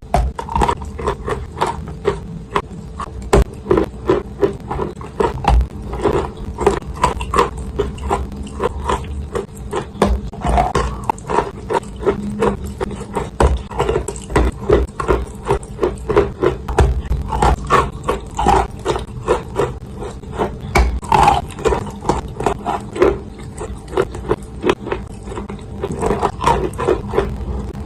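Close-up crunching of dry edible clay being bitten and chewed: a rapid, uneven run of sharp crunches and gritty scraping, several a second.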